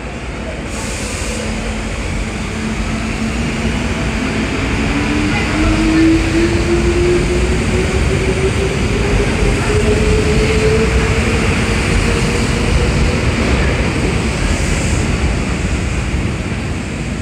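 Kintetsu Aozora charter electric train departing and accelerating past along the platform: a steady rumble of wheels on rails that grows louder, with a whine that rises steadily in pitch over about ten seconds as it gathers speed.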